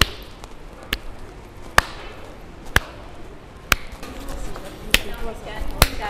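Footsteps on a hard, tiled floor: sharp clicks about once a second, over the faint murmur of a crowd.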